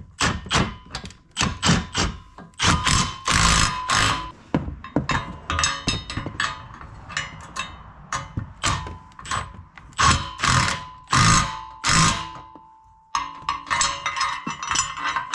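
Cordless impact driver run in short stop-start bursts, turning a 13 mm long socket on a wobble extension to tighten the bumper bracket's flange nuts, with clinks of the socket and hardware between bursts.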